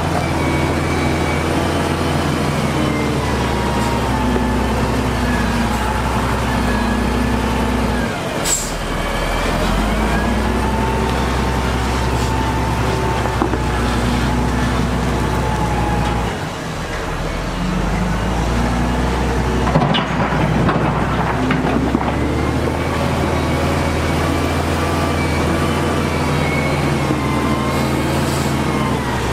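Heavy diesel engine of a wheel loader working steadily under load as it pushes stone, with a whine that rises and falls in pitch; the engine note drops off briefly twice, about eight and sixteen seconds in.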